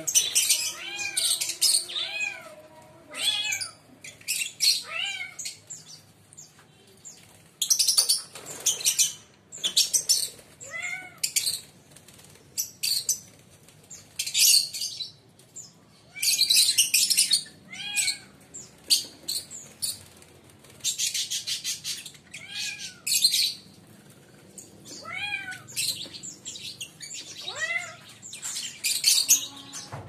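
Lovebirds calling: repeated short, arched high chirps mixed with harsh, buzzy chattering bursts, coming in clusters with short gaps.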